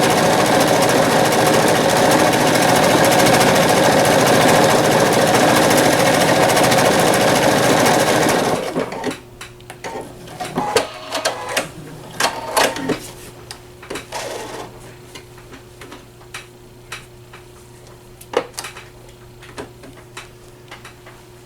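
A PFAFF Quilt Expression 4.0 sewing machine sews a wide decorative heart stitch at a steady speed, then stops about eight and a half seconds in. After that come scattered small clicks and handling noises over a faint steady hum.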